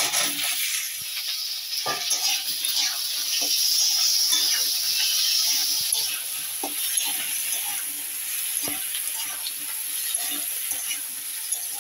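Raw potato pieces tipped into hot oil with fried onions in a wok, sizzling loudly for the first few seconds and then more softly, while a metal spatula stirs them with repeated scrapes and clicks against the pan.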